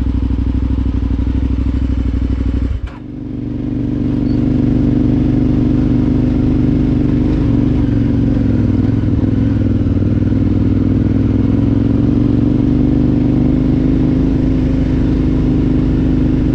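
Adventure motorcycle engine running under way. About three seconds in the sound drops sharply for a moment, then builds back up and runs steadily again.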